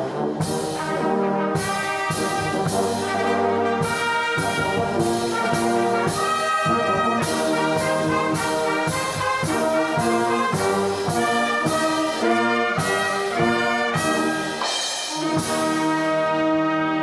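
Brass band of trumpets, trombones, horns and tuba playing a hymn tune in moving notes, then holding one long chord near the end.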